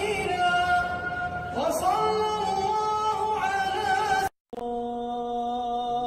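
Sung religious vocals: a voice holding long, slowly bending notes. About four seconds in, the sound cuts out for an instant, and a lower chanting voice takes over with long, steady held notes.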